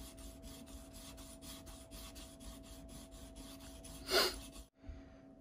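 Steel knife blade (Mora Companion 860) scraping in quick short strokes on a wet whetstone, about five strokes a second, as a dull patch near the edge is worked up to a polish. About four seconds in there is one louder brief rush, and then the scraping stops.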